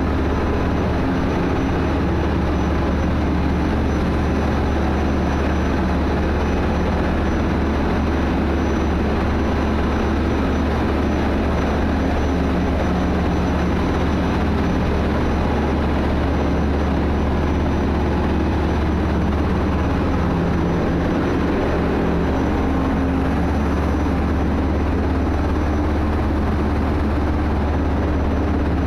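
Tanker ship's engine-room machinery running: a loud, steady low drone with a dense noise and a few held tones above it.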